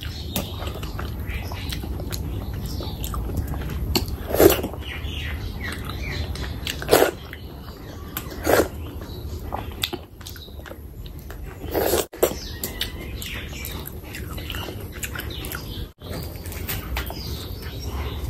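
Close-miked chewing and wet mouth sounds of someone eating curry and rice by hand: many small smacks and clicks, with four louder wet mouthfuls about four and a half, seven, eight and a half and twelve seconds in, over a steady low hum.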